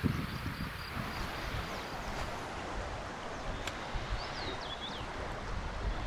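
River water flowing steadily, with gusty wind rumbling on the microphone and a few short high chirps about four seconds in.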